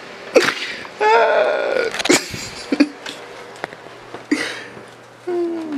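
A person's vocal outbursts rather than words: short, sharp breathy bursts and one drawn-out wail falling in pitch, with a few small clicks between them.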